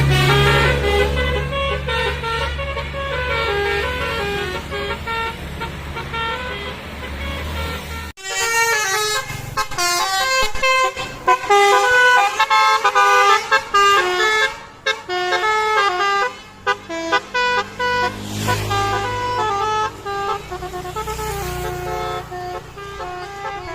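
A Basuri telolet multi-tone horn on a minibus plays a quick tune, note after note, over a low rumble. About eight seconds in there is a sudden break, and the horn melody carries on with the rumble gone.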